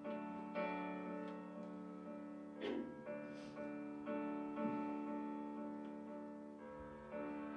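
Piano playing slow, held chords, a new chord struck every one to two seconds and left to ring.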